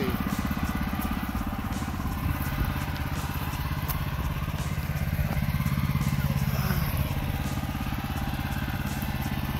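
Small gasoline engine of a Woodland Mills Woodlander portable bandsaw mill running steadily, with a fast even firing pulse, and a few faint knocks of the cut wood being handled.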